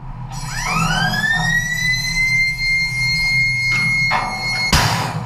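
Shipboard Rolling Airframe Missile launcher: a whine rises in pitch for about a second and a half, then holds steady. Near the end a sudden loud rush of noise comes as a missile fires.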